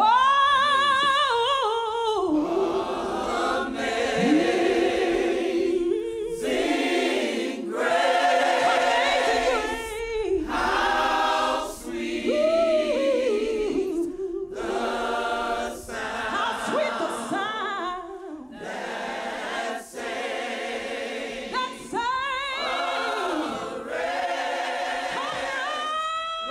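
Choir singing, with a woman singing lead into a microphone in long, wavering held notes. The phrases are separated by brief breaks.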